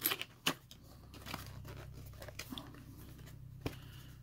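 Cardboard retail box being pulled open by hand: a sharp tearing snap at the start and another about half a second in, then the crinkle and scrape of paperboard flaps, with one more sharp click near the end.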